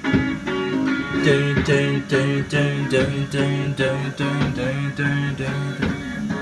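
Kiddie ride train playing its instrumental ride music through its speaker: a bouncy plucked-string tune over a steady beat, with a bass line joining about a second in.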